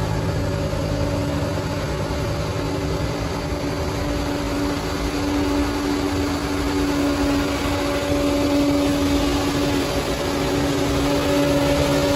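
Bulldozer's diesel engine running at a steady, even pitch with a low rumble.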